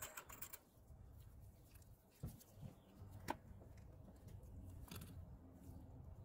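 Near silence: a faint low hum with a few soft, short clicks and taps, the loudest about three seconds in.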